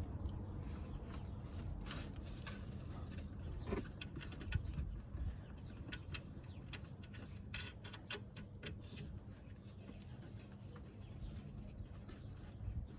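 Scattered light clicks and knocks of hand tools and metal suspension parts being handled and fitted, irregularly spaced, over a steady low hum.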